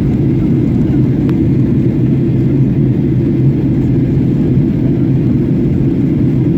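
Steady rumble of a Boeing 737-800's CFM56 jet engines and airflow heard inside the passenger cabin, with a constant low hum.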